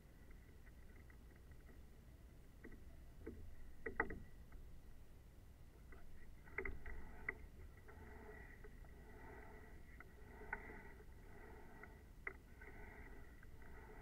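Faint water lapping against the hull at the bow of a rowing eight, with a few sharp knocks. From about the middle on it becomes a soft wash that repeats every second or so.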